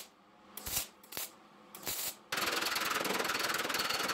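TIG welding arc on a steel fender, welding up cracks in the sheet metal: a few short tack bursts, then from about two seconds in a steady hissing arc with a fast, even pulse.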